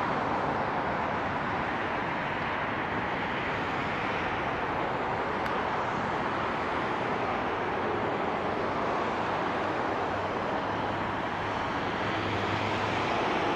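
Distant steady rushing jet noise of a Boeing 737 MAX 8's CFM LEAP-1B engines on final approach, growing a little louder near the end as the airliner reaches the runway.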